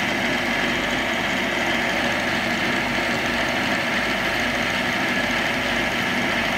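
Metal lathe running steadily, its cutting tool turning a small copper rivet.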